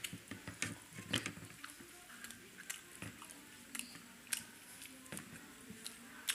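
A man chewing soft food close to the microphone, with wet mouth smacks and clicks at irregular intervals.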